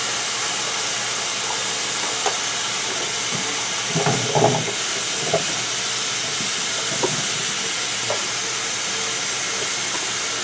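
Kitchen faucet running steadily into a sink as vegetables are washed under it, with a few light knocks and clatters as things are handled in the stream.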